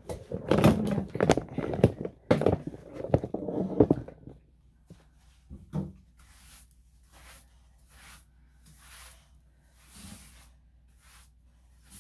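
A dense run of clattering knocks and handling thumps for about four seconds, then soft breathy hisses repeating about once a second.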